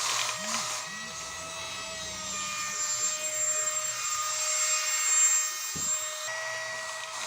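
Small electric suction fan of a wall-climbing toy dog running with a steady whine on its highest (third) setting, the one used for climbing walls. A brief low knock comes near the end.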